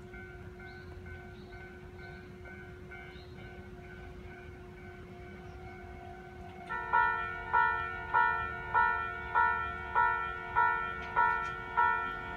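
Japanese railway level-crossing warning bell. For the first six seconds it is faint and distant, over a steady hum; then a nearer crossing bell starts loud and rings evenly, about three strikes every two seconds, each strike ringing on briefly. The bell signals a train approaching the crossing.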